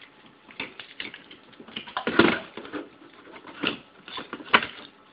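Irregular clicks, knocks and rattles of a Canon Pixma iP4500 printer's internal power adapter being handled and its cable unplugged. The loudest knocks come about two seconds in and again near the end.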